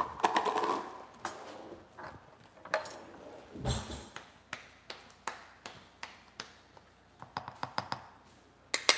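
A metal spoon clicking and scraping against a glass jar and a ceramic bowl as achiote is spooned out: scattered light clicks, a quick run of them near the end, and a longer scrape about four seconds in.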